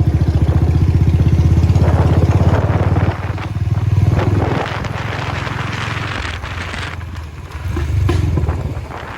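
Royal Enfield Bullet's single-cylinder engine running on the move with a fast, even thump, easing off about three seconds in and picking up again twice.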